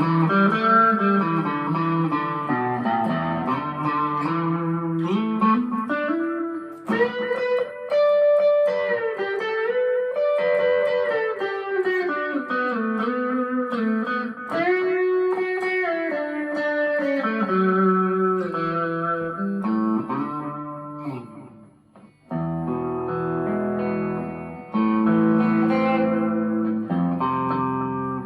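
Tele-style electric guitar, a Harley Benton TE-25th on its middle pickup, played through a small Marshall MG15 amp with a little delay: flowing single-note lines and chords. It drops out briefly about 22 seconds in, then comes back with ringing chords.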